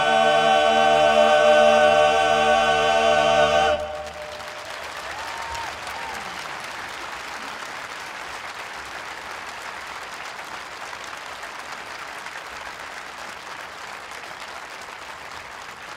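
An a cappella klapa choir holds the final chord of a Dalmatian song, which cuts off sharply about four seconds in. An audience then applauds steadily, slowly dying down.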